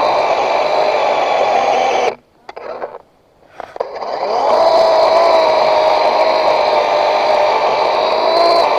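Chainsaw engine running at high revs. About two seconds in it cuts out for a second and a half, then revs back up in a rising whine and runs steadily again.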